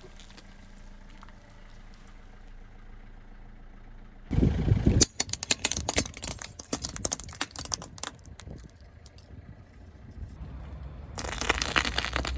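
A car's engine idles low, then a tyre rolls over and crushes something: a loud burst about four seconds in, followed by a run of crackling and snapping, and more crackling near the end.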